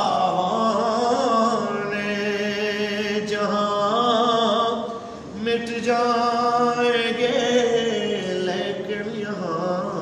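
A man's unaccompanied voice chanting an Urdu devotional poem (naat), holding long drawn-out notes whose pitch wavers slowly, with a short break for breath about five seconds in.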